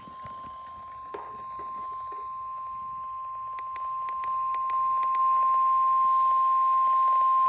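NOAA Weather Radio 1050 Hz warning alarm tone: one steady high beep that grows louder in steps, the signal that a weather warning broadcast follows. A few faint clicks come midway.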